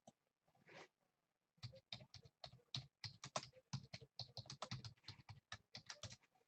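Computer keyboard typing, faint: a run of quick, irregular key clicks starting about a second and a half in and stopping just before the end.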